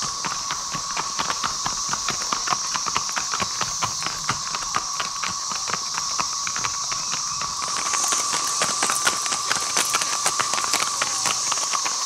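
Hooves of a group of horses clip-clopping as they walk past, the hoofbeats growing louder and denser about eight seconds in. Underneath runs the steady drone of a 13-year periodical cicada chorus.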